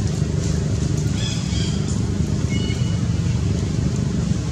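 Steady low rumble of background noise, with a few faint, short, high chirps a little over a second in and again near the middle.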